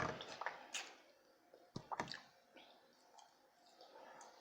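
Close-up eating sounds: a few sharp mouth clicks and smacks in the first two seconds, then quieter chewing.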